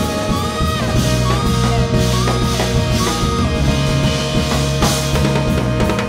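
Small jazz ensemble playing live: trumpet, alto sax and tenor sax play a melody line together in held notes with short slides between them, over drum kit and the rest of the rhythm section.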